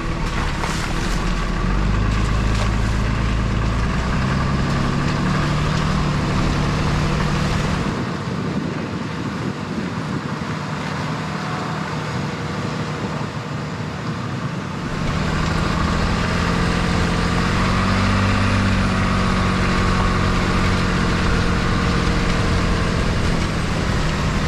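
Ram diesel pickup driving on a wet gravel road, heard from a camera mounted outside on the truck: a steady engine drone that shifts in pitch now and then, under road and tyre hiss. From about 8 s to about 15 s the low drone drops away and leaves a thinner hiss, then the full drone comes back.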